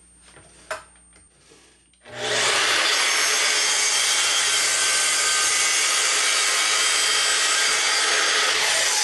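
Miter saw starting up about two seconds in and cross-cutting half-inch construction-grade plywood: a loud, steady rush of blade and motor noise that holds evenly to the end.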